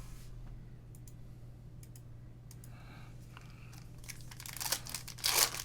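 Foil wrapper of a trading-card pack crinkling and tearing as it is opened, after a few light clicks. The crinkling gets denser and louder in the last second and a half, over a faint low steady hum.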